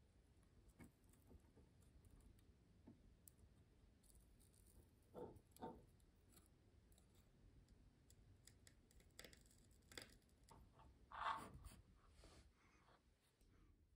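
Near silence with faint clicks and taps of small parts being handled during soldering of bullet connectors onto wires, with two short handling sounds about five seconds in and a louder one near the end.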